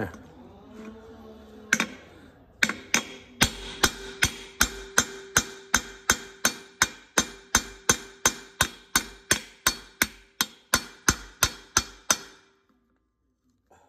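Steel hammer striking a chisel set in a seized brake-drum screw on a Massey Ferguson 135, one blow and then a steady run of about three blows a second. The cast-iron drum rings after each blow, and the blows stop shortly before the end.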